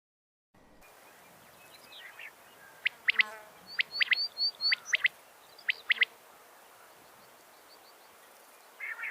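Female quail calling: sharp, very quick notes in clusters of two or three, with a few thin high chirps between them. The sound cuts in after a brief silence at the start, and the calls begin about three seconds in.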